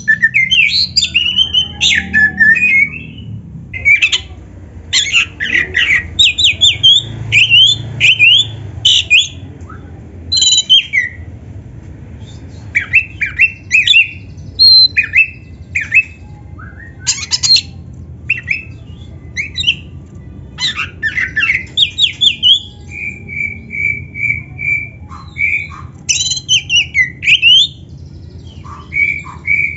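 Oriental magpie-robin singing a loud, varied song of quick whistled phrases mixed with harsh notes, with a short run of evenly repeated notes about two-thirds of the way through.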